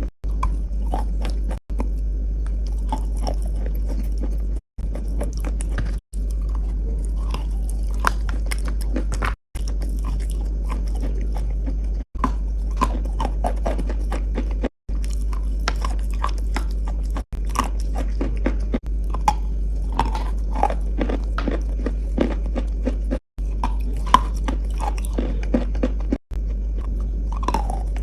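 Close-up biting and chewing of hard, crunchy chalk-like pieces, with sharp crackles and crunches under a steady low hum. It is cut into short stretches with brief breaks every second or few.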